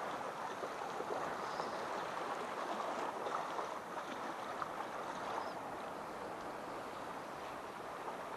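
Sea water washing over shoreline rocks: a steady rush of small waves and foam.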